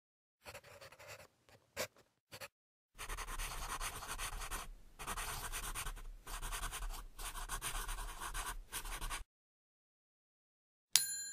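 Pencil scratching on paper as words are written: a few short strokes, then about six seconds of steady scribbling with brief breaks, stopping about nine seconds in. A short bright chime rings near the end.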